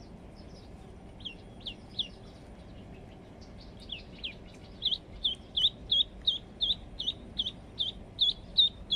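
A duckling used as live bait for snakehead, peeping in short high calls that fall in pitch. A few scattered peeps come first, then from about four seconds in a steady run of about three a second.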